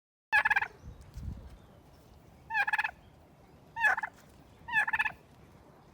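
Domestic turkey gobbling: four short, rapid warbling gobbles, the first about a third of a second in and the next three in quick succession from a little over two seconds in.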